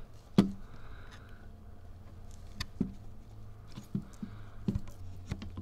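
Scattered small clicks and taps as a small flathead screwdriver and fingers work rubber feet into a bracket, the sharpest about half a second in, over a low steady hum.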